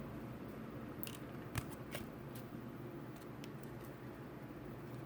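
Trading cards being handled and slid over one another, a few faint clicks and flicks over a steady low room hum, the sharpest click about a second and a half in.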